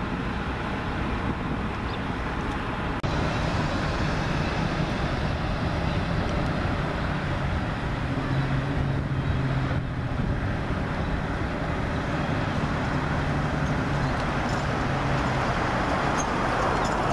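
Steady outdoor rumble and hiss with a low hum underneath, stepping up in level about three seconds in.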